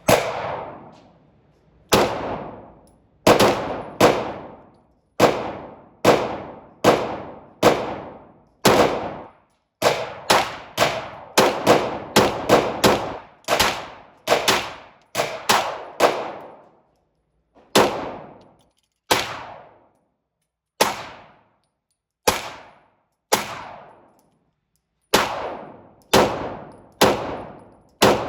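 Handgun fired in single shots, about thirty at uneven intervals, with a quick run of a shot roughly every half second in the middle. Each shot rings on with a short echo.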